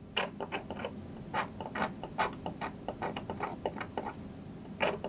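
Steel point scratching hatch lines into a metal printing plate: quick, uneven scratchy strokes, several a second.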